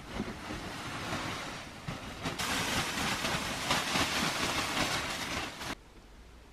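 Snow sliding off a greenhouse's plastic-sheeted roof as the sheeting is pushed up from inside, a rushing, scraping noise with plastic rustling. It gets louder a couple of seconds in and stops abruptly near the end.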